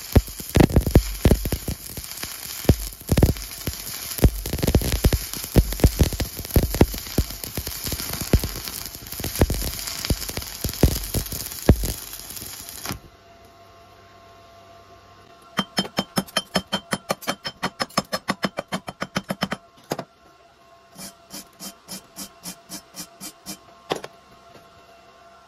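Stick-welding arc crackling and popping steadily as an electrode runs a bead joining ribbed rebar to steel, for roughly the first half. It stops suddenly, and later come two runs of fast, even tapping, about five taps a second.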